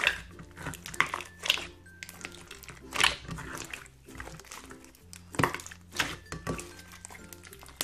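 Hands kneading and squeezing a large mass of slime, with irregular squelches and pops about once a second, over soft background music.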